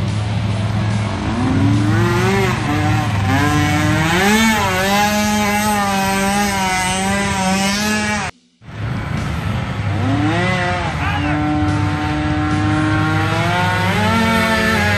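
Several ATV engines revving, their pitch rising and falling as they rev up and ease off, sometimes two engines at once. The sound drops out briefly about eight seconds in.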